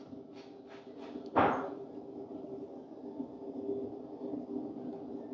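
A few faint clicks, then a single thud about a second and a half in, over a faint steady hum.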